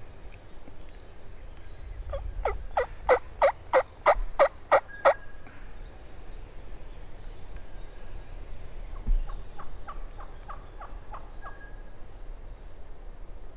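Wild turkey yelping: a loud run of about nine sharp, evenly spaced yelps, roughly three a second. About four seconds later comes a second, fainter run of about nine yelps.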